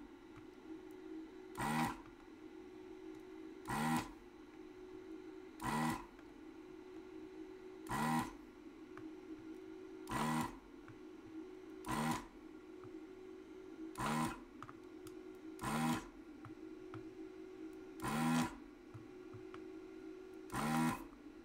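The vacuum pump of a ZD-915 desoldering station runs in short bursts, about ten times, roughly every two seconds, as each solder joint is sucked clear in turn. A steady low hum sits underneath.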